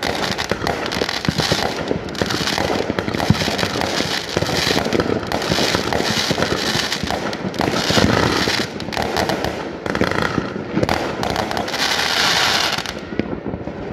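Many aerial fireworks going off at once: a continuous barrage of overlapping bangs and pops, with a dense stretch of crackling near the end.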